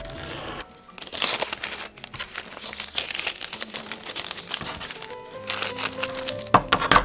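Thin clear plastic sheet crinkling as it is picked up and handled, over background music.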